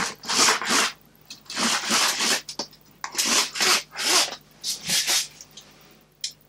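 A tarp roller blind being rolled up by hand: a series of short rustling bursts, about a dozen in five seconds, that stop near the end.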